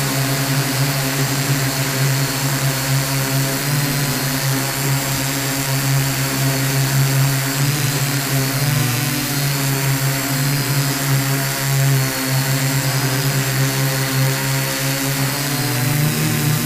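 Electric motors and propellers of a small remote-controlled aircraft, heard up close from on board as it hovers: a steady buzzing hum with a thin high whine, wavering a little in pitch and rising slightly near the end.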